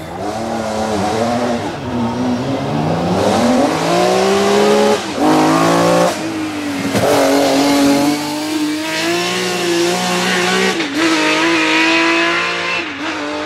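The Opel Omega Evo 500 race car's naturally aspirated 3.8-litre inline-six accelerating hard out of a hairpin and up the hill. Its revs climb and drop back several times through gear changes, and the sound fades as the car pulls away near the end.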